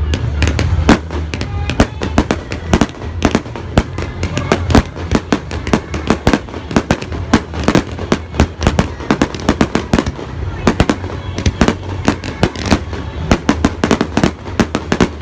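Fireworks going off in quick succession: a dense run of sharp bangs and crackles, several a second, over a steady low rumble.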